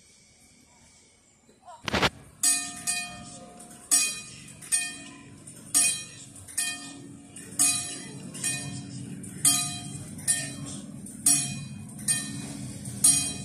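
Railway level-crossing warning bell starting with a sharp clang about two seconds in, then ringing in evenly spaced strokes about one a second, warning of an approaching train.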